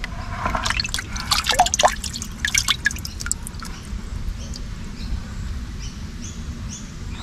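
Water splashing and dripping as a hand sloshes through a plastic bucket of small fish and scoops them up. The splashing is busiest in the first three seconds, then gives way to sparser drips from the raised wet hand.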